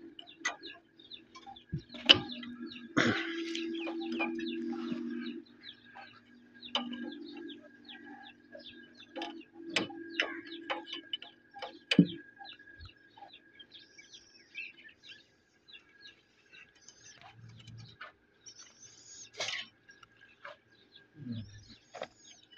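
Spanner clinking and tapping on the metal fuel-pipe fittings of an old diesel engine, with two sharp metal knocks about 2 and 12 seconds in. A steady low hum comes and goes in the first half, and birds chirp a few times in the second half.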